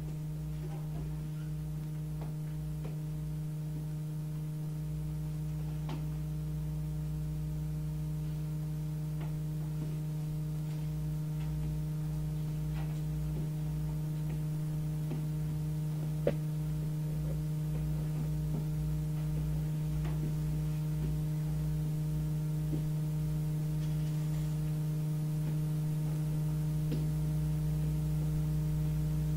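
A steady low electrical hum fills the room with no speech. Faint scattered clicks and ticks sound throughout, and one sharper click comes about sixteen seconds in.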